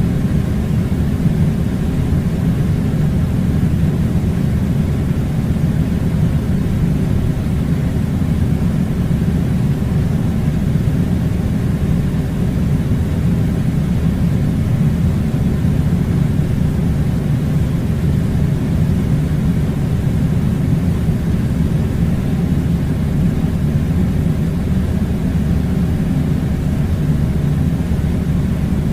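Air conditioning unit running with a steady low rumble that does not change.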